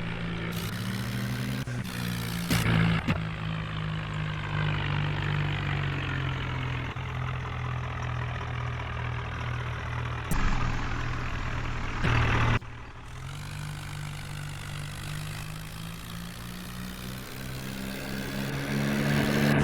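Backhoe loader's diesel engine running steadily. There are louder, noisier stretches at about 3 seconds and between about 10 and 12 seconds. Near the end the engine note rises as it revs up.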